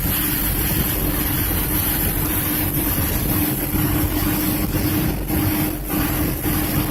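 Tour boat's engine running steadily, a low rumble with a steady hum and an even rushing noise of wind and water over it.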